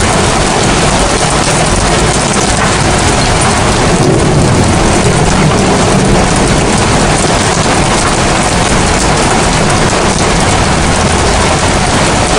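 Heavy rain falling steadily, a loud, even hiss, with a low rumble underneath that swells a little about four seconds in.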